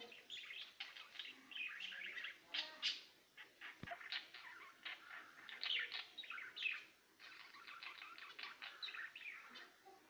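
Small caged finches chirping: a rapid, busy stream of short high chirps.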